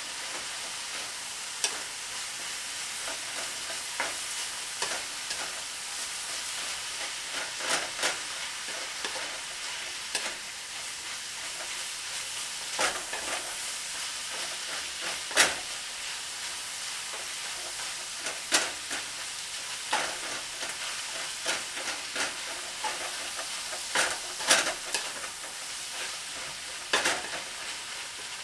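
Ground beef, spinach and mushrooms sizzling steadily in a frying pan while a wooden spatula stirs them, with irregular sharp clacks and scrapes of the spatula against the pan, the loudest about halfway through.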